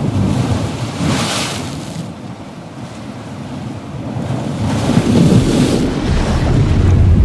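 Sea waves: a steady low rumble of surf with two washes of hiss, one about a second in and another about five seconds in.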